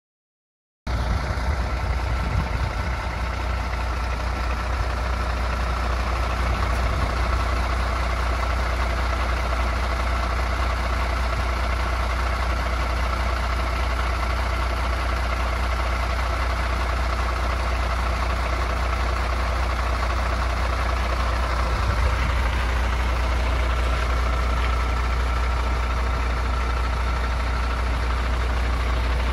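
MAN TGS 24.470 tractor unit's 12.4-litre six-cylinder diesel idling steadily with a deep, even hum, cutting in after about a second of silence.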